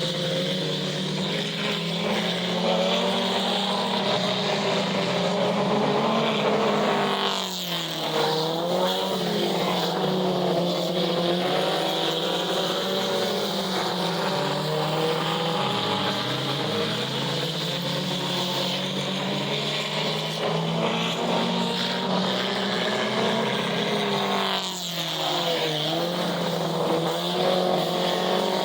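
Several racing engines running together at speed on a track. Their pitch sags and climbs back twice, about seventeen seconds apart.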